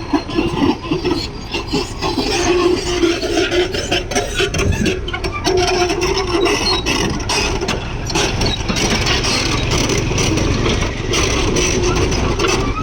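Backhoe loader's diesel engine running under load, with a continuous grating, rasping scrape and small knocks from digging.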